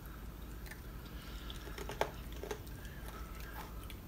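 A young girl quietly chewing a Flamin' Hot Cheeto topped with Cool Whip, with a few faint mouth clicks and crunches; one sharper click about two seconds in.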